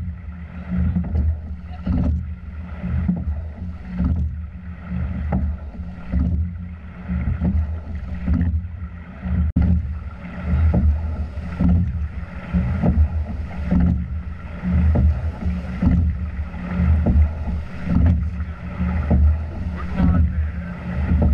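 Rowing shell under way at a steady stroke rate of 28: the rush of water and wind on the boat-mounted microphone swells and falls with each stroke, about once every two seconds, with a light knock at each stroke.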